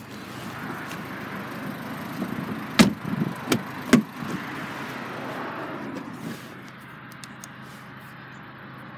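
Rustling movement around a car door, with three sharp clunks close together about three to four seconds in, the first the loudest.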